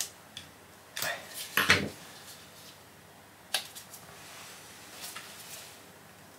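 Scattered metallic clicks and clinks of a small carburetor and hand tools being handled as it is taken apart by hand. The loudest knock comes a little under two seconds in.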